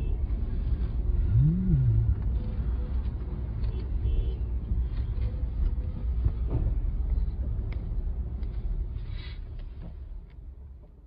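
Low, steady rumble of road vehicles, with a short note that rises and falls about a second and a half in. The rumble fades out near the end.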